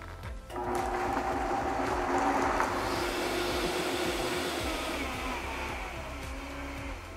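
Vitamix A3500 high-powered blender blending a liquid chipotle sauce, its motor starting about half a second in. Toward the end the pitch falls and the sound fades as the blender winds down.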